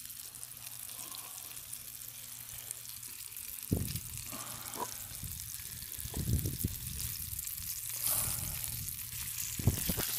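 Oil sizzling around breaded fish fillets in a cast-iron skillet over campfire coals: a steady high hiss, with a few dull knocks around four and six seconds in.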